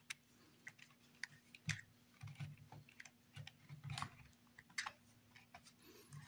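Faint, irregular small clicks and taps of hands handling the plastic housing, lamp heads and wiring of an exit/emergency light, over a low steady hum.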